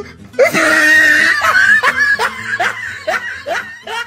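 Laughter: a long run of short rising 'ha's, about two or three a second, starting suddenly about half a second in and gradually fading.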